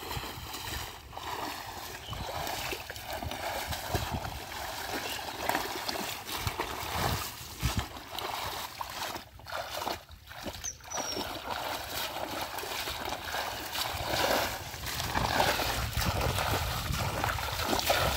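Shallow water splashing and sloshing as hands grope for fish among water hyacinth and legs wade through it, with irregular splashes that grow louder near the end.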